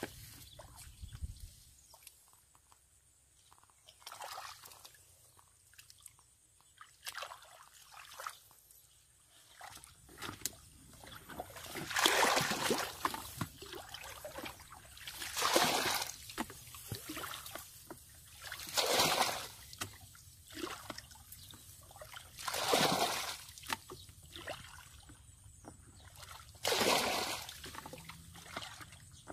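Muddy water being bailed out of a shallow pool with a plastic basin: five loud splashing sloshes, one about every three to four seconds, as each scoop is thrown out. Before that, the first ten seconds hold only quiet trickles and small splashes from wading in the mud.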